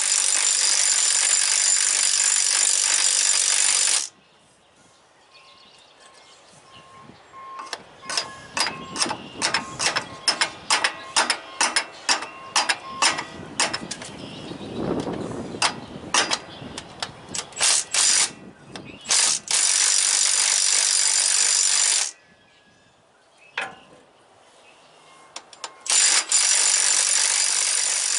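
Half-inch-drive cordless stubby impact wrench hammering on a seized alternator bracket bolt, in three steady runs: about four seconds at the start, a couple of seconds past the middle, and again near the end. Between the first two runs comes a long irregular string of short, sharp metallic clicks and knocks.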